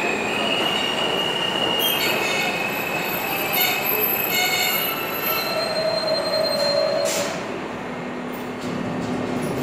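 Subway refuse train (R32 cars hauling R127/R134 garbage cars) rolling slowly through an underground station: a steady rumble of steel wheels on rail with high-pitched wheel squeals, several tones at once, in the first half, then a lower whine.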